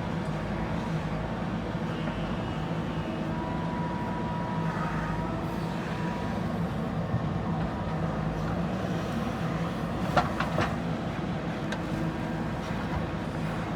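JCB backhoe loader's diesel engine running steadily under work, with a thin whine for a few seconds and a quick cluster of sharp knocks about ten seconds in.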